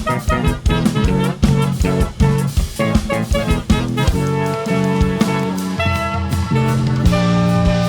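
A band playing an instrumental piece live. Fast rhythmic hits and busy notes give way, about halfway through, to long held notes.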